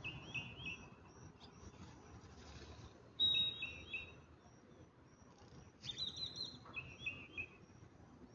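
Wild birds calling: a thin high note repeating about twice a second, with groups of quick chirps near the start, about three seconds in and again around six to seven seconds in, over a low rumble.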